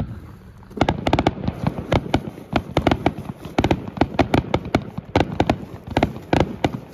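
Fireworks barrage: one loud bang, then from about a second in a rapid run of sharp reports, several a second, as multiple shells launch from ground tubes and burst overhead.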